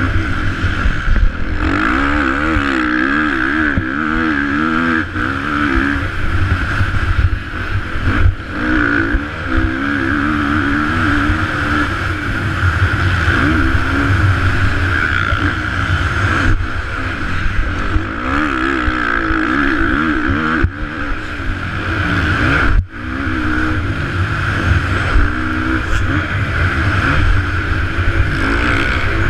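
Motocross bike engine heard from on board during a lap, its pitch rising and falling over and over as the throttle is opened and closed through the track's sections. It cuts out sharply for a moment about three-quarters of the way through.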